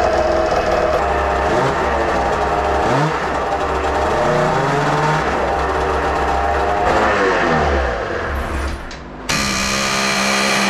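Arctic Cat ZR600 snowmobile's two-stroke engine revved up and down several times with the rear of the sled jacked up and the belt on, to shock a seized secondary clutch loose. About nine seconds in it gives way to a steady buzzing sound.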